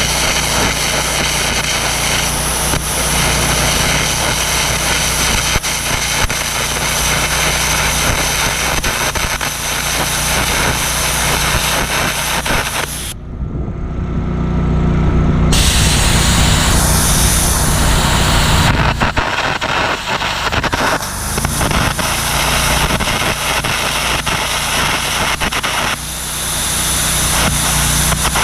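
Air carbon arc gouging on the steel backhoe boom: a loud, steady hiss and crackle over a running engine, broken by several abrupt cuts between clips about halfway through.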